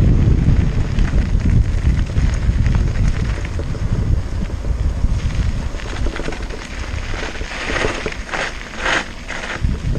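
Wind buffeting the microphone of a camera on a mountain bike rolling downhill, a heavy low rumble that eases off about halfway through. A few short scraping noises come near the end.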